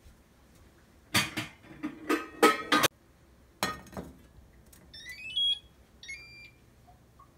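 A white pot clattering and knocking as it is set down on a glass electric cooktop, with a second knock about four seconds in. Then the cooktop's touch controls beep: a short rising run of tones as it is switched on, followed by a shorter beep.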